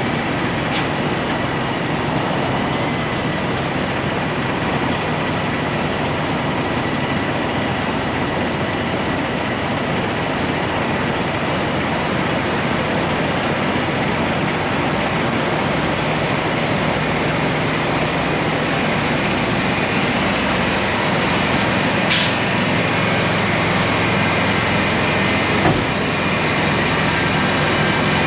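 Semi truck's diesel engine running with road noise as the truck rolls slowly across a lot, heard from a camera mounted outside the cab; steady throughout, with a few short sharp clicks, mostly near the end.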